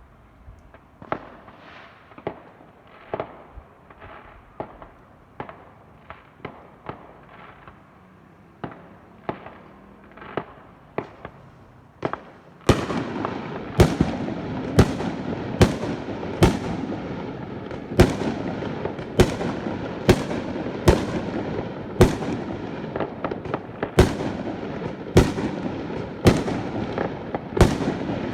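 Fireworks going off in a steady run of bangs, roughly one every half second to second, over a constant crackle. About halfway through it suddenly gets louder, with sharper bangs over a denser crackling.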